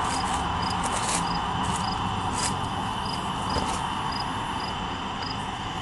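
Crickets chirping steadily, about two evenly spaced high chirps a second, over a steady low rumble and hiss.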